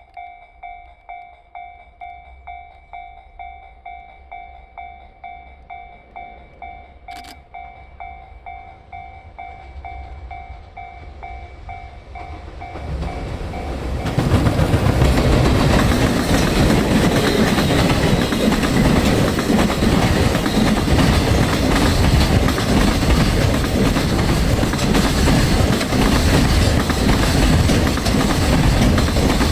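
Level-crossing warning bell ringing in a steady pulse, about two to three strikes a second, while the rumble of an approaching freight train grows. About halfway through, the EF210 electric locomotive and its container wagons pass close by, wheels clattering over the rail joints and drowning out the bell.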